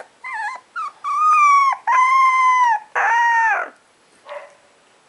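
Very young puppy howling: a few short wavering yips, then three long high howls of just under a second each, the last one sliding down in pitch, and a short faint whimper near the end.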